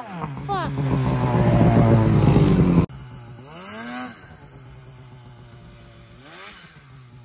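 Polaris RMK 800 two-stroke snowmobile engine revving hard and held at high revs as the sled wheelies close by. About three seconds in the sound cuts off suddenly, and the same engine is then heard faint and distant, revving up twice more.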